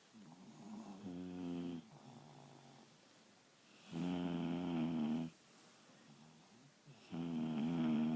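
Sleeping dogs snoring super loud: three long snores about three seconds apart, each lasting a little over a second, with softer breaths between them.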